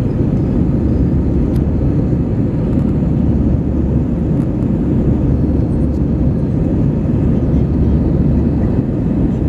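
Steady jet engine and airflow noise inside an airliner cabin, deep and even, with the engines at climb power shortly after takeoff.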